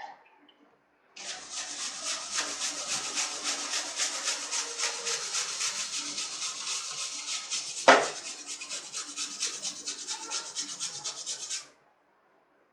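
A brush scrubbing the wet cross-flow blower fan of a Gree split air conditioner's indoor unit, in rapid scratchy back-and-forth strokes, as the fan is cleaned with detergent water. There is a single sharp knock about eight seconds in, and the scrubbing stops suddenly near the end.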